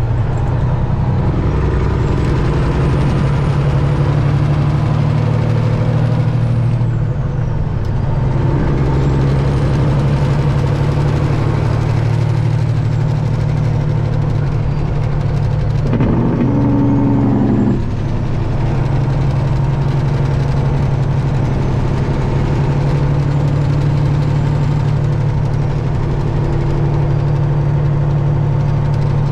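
Detroit Diesel engine of a Peterbilt 379 running steadily, with a faint high whistle rising and falling a few times. There is a short change in tone about sixteen seconds in.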